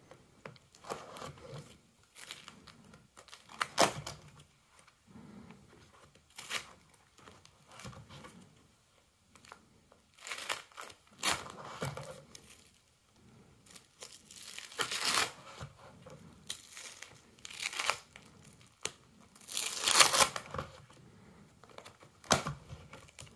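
Plastic sleeve pages of a card binder being turned, crinkling and peeling apart where the sticky pages cling together, in irregular rustles every second or two.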